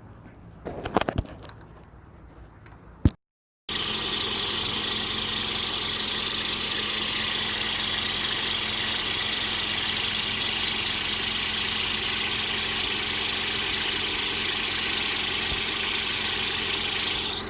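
A few light knocks and a sharp click, then, after a brief gap, an old farm tractor's gasoline engine running steadily on a small temporary test fuel tank. It keeps running, the sign that the engine works again.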